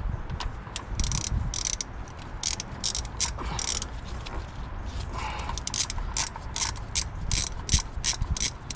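Hand ratchet wrench clicking as it drives in a water pump bolt on an LT1 V8: two short groups of clicks in the first few seconds, then a quick, even run of clicks through the second half.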